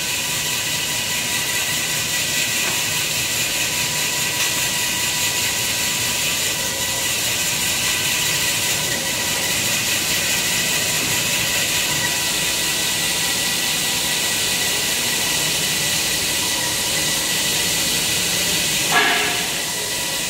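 Steady hiss of workshop machinery running, with a faint constant whine in it. Near the end, a brief sound falling in pitch stands out above it.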